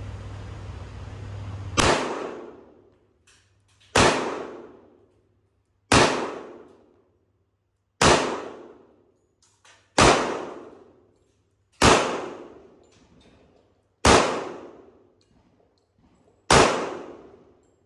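Eight single shots from a Sig Sauer 1911 Spartan pistol firing .45 ACP, slow and evenly paced about two seconds apart, each followed by a short ringing tail. A steady rushing noise runs for the first couple of seconds, until the first shot.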